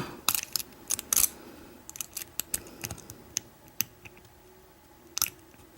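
Lock pick and tension wrench working the pins of an American 1100 padlock: irregular small metallic clicks and taps as pins are lifted one at a time, with a louder click about five seconds in.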